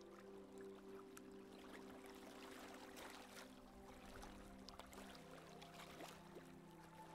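Faint soft background music of long held notes, changing chord about five seconds in, over the light hiss and splash of water moving along a sailboat's hull.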